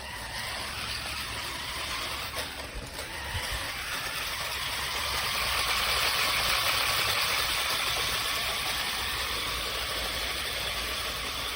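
Toy remote-control stunt car's small electric drive motors and gears running with a steady whirring buzz, growing louder about four seconds in.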